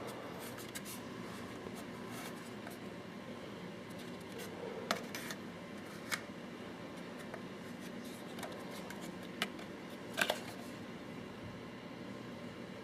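A few sharp plastic clicks and taps as a GI Pulse RDR paintball hopper is handled and inspected, over a steady room hum. There are single clicks about five, six and nine seconds in, and a double click at about ten seconds.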